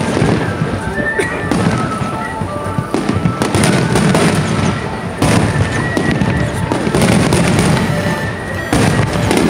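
Aerial fireworks shells bursting one after another in a dense barrage, with music playing underneath.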